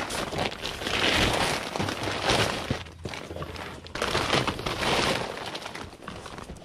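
Blue woven-plastic IKEA bag rustling and crinkling in repeated swells as it is opened out and handled, with boxed vinyl figures being slid into it.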